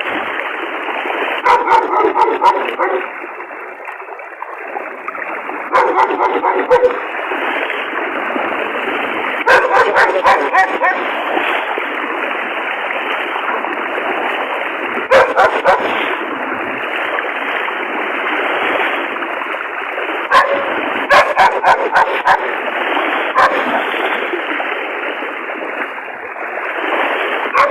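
A dog barking in repeated clusters of short barks, about six bouts, over a steady rushing of fast-flowing floodwater.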